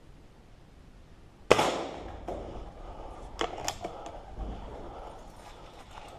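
A single .410 shotgun shot about a second and a half in, ringing on briefly after, followed by several lighter sharp clicks.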